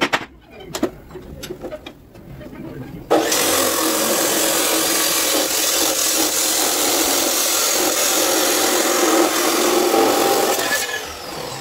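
A few knocks as the steel driveshaft tube is handled, then about three seconds in an abrasive chop saw starts at once and grinds steadily through the tube for about eight seconds, fading out near the end as the cut finishes.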